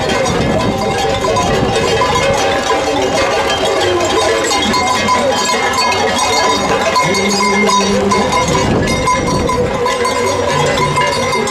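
Many metal bells clanking and ringing continuously among the horses, with a crowd's voices underneath.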